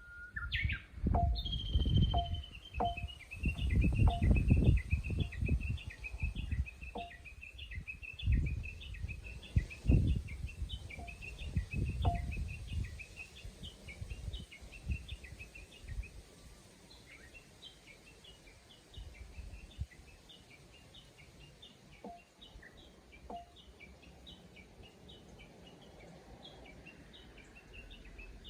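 Japanese bush warbler giving a long run of rapid, repeated high notes that goes on for over ten seconds, pauses briefly, then starts again. In the first half, low rumbling thumps come and go and are the loudest sound.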